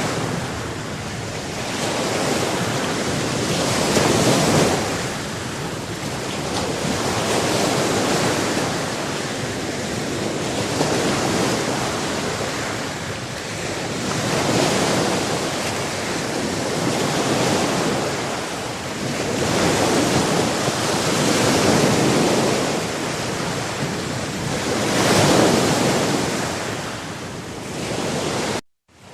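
Ocean surf: waves breaking and washing in and out, the rush swelling every few seconds. The sound cuts out for a moment near the end.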